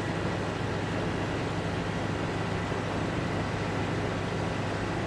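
A steady low machine drone with a rushing noise over it, as molten steel pours into a sand mould and the gases from the mould burn off in flames.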